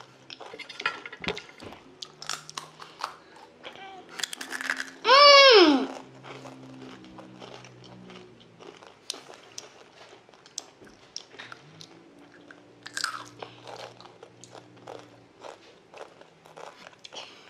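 Children crunching and chewing Doritos Dinamita rolled tortilla chips, a long run of short sharp crunches. About five seconds in, a child gives a loud high-pitched cry that swoops down in pitch, with a shorter vocal sound near thirteen seconds.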